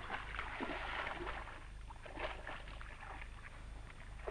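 Water splashing and sloshing as hippopotamuses move and jostle in a shallow pool, in irregular bursts over a steady low hum.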